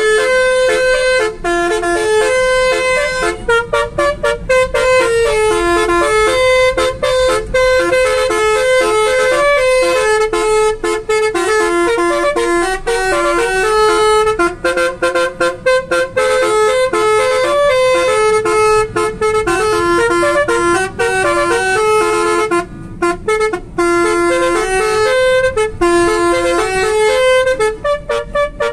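Basuri musical car air horn playing a fast tune, note after note in a rapid melody, with brief gaps between phrases; very loud.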